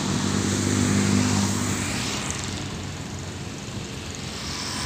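A motor engine hums steadily. It is loudest about a second in, then fades away.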